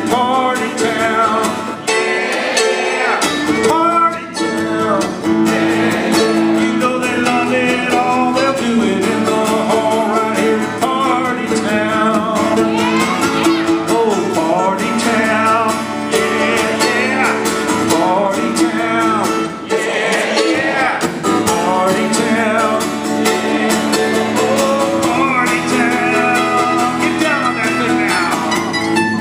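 A man singing a country-folk song to his own acoustic guitar, with a mandolin picking along, played live.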